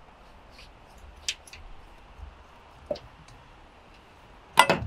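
Pieces of an Odoland camping cookware kit being handled and fitted together: a few light clicks and taps, then a louder clatter of metal pieces knocking together, with a brief ring, near the end.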